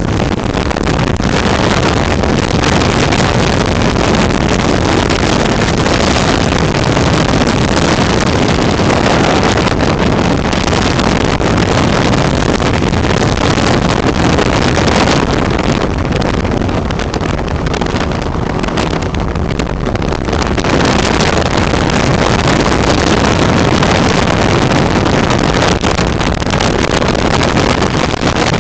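Flex-wing microlight trike in cruise flight: a steady engine drone buried in heavy wind rush on the open-cockpit microphone, easing slightly for a few seconds past the middle.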